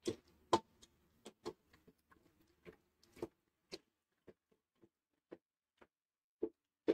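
Wooden dal masher pounding cooked dal in an aluminium pressure cooker: irregular soft knocks against the pot, a few a second, thinning out in the second half.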